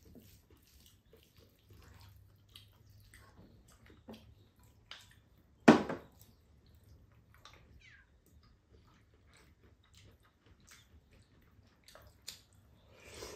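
Table eating sounds: wooden spoons and chopsticks scraping and clicking against bowls and a frying pan, with chewing. One much louder sharp knock comes about six seconds in.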